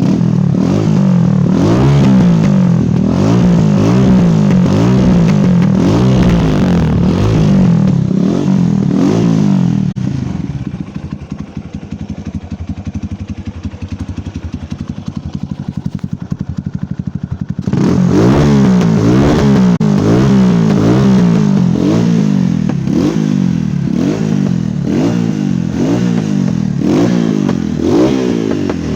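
Chinese-made KTM-style 250 motorcycle engine on its stock exhaust, the throttle blipped over and over so it revs up and drops back repeatedly. About ten seconds in it settles to a quieter, even idle, then about seven seconds later the revving starts again.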